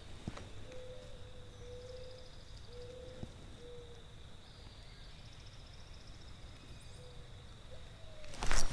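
Outdoor creek ambience: a steady high-pitched insect drone, with a series of short low, cooing call notes from a bird, and a brief loud noise near the end.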